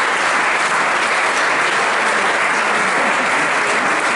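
Audience applauding, steady and sustained clapping from a seated crowd in a hall.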